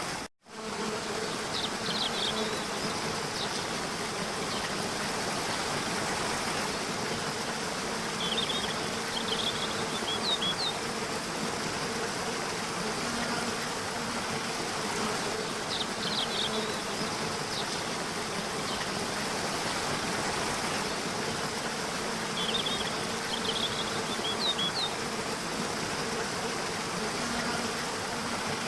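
Steady buzzing drone over an even hiss of running water, with clusters of short high chirps recurring every six to seven seconds.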